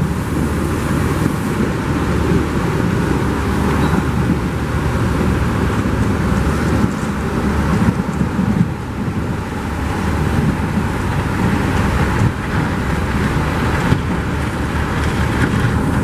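Diesel engines of a Terex wheel loader and a dump truck running loudly and steadily at close range during night snow clearing, a continuous low engine rumble that rises and falls a little.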